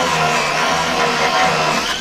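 4-inch angle grinder with a 40-grit flap disc running against a wooden handle, shaping it down; its whine wavers and dips in pitch as the disc is pressed into the wood.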